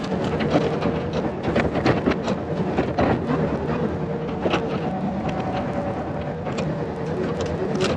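Yanmar ViO50 mini excavator's diesel engine running under load with its hydraulics working, broken by frequent short clanks and cracks.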